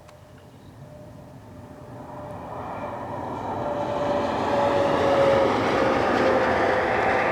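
Amtrak passenger train led by a P42DC diesel locomotive approaching along the main line, its rumble growing steadily louder over about five seconds and then holding loud, with a few steady tones in it sinking slightly in pitch.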